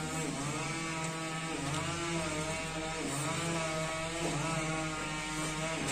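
A small engine running steadily, its pitch swelling and falling back about once a second.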